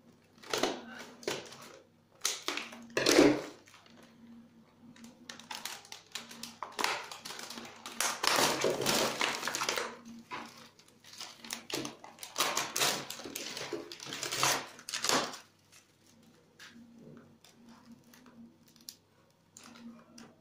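Foil and plastic packaging crinkling and rustling in irregular bursts, with knocks and clatter from a metal cake tin and the cake being handled; a sharp knock about three seconds in is the loudest.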